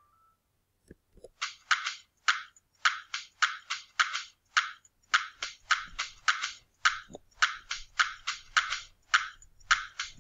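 Computer typing sound effect: an uneven run of short, sharp key clicks, about three a second, starting about a second and a half in after a couple of faint low thuds.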